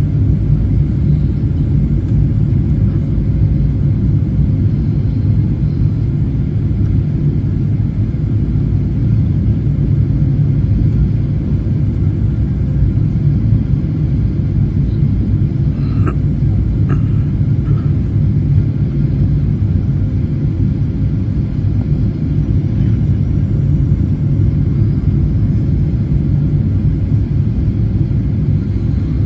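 Steady low rumble of a jet airliner's engines and rushing air, heard inside the passenger cabin during a low approach, with a faint steady whine above it.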